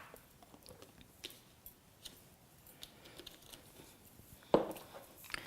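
Faint scattered clicks and light taps of kitchen items being handled, with one louder short knock about four and a half seconds in.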